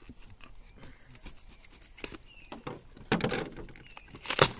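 Packing tape being picked at and peeled off a cardboard shipping box, with small scratches and crinkles of tape and cardboard. A longer tearing sound comes about three seconds in, and a louder, shorter tear near the end.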